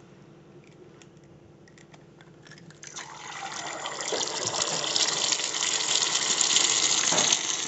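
Egg cracked over a small iron tadka pan with a few faint shell clicks, then about three seconds in the egg drops into hot oil and starts sizzling. The sizzle rises quickly and stays loud and steady.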